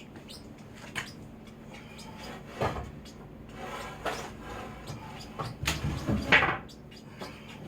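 Wooden boards knocking and scraping as pieces of a small frame are fitted together: a few separate knocks, then a louder cluster of clatter about six seconds in.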